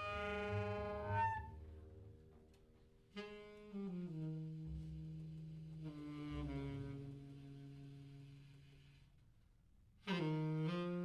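Saxophone playing long, low notes that slide downward in pitch and fade away, meant to evoke elephant cries. One note dies away early on, a second slides down about three seconds in and steps lower before fading, and a new note enters near the end with a dip and rise in pitch.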